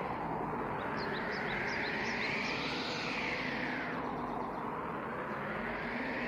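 Steady rushing background noise, with a hiss that slowly swells and fades, and a quick run of faint high chirps about a second in.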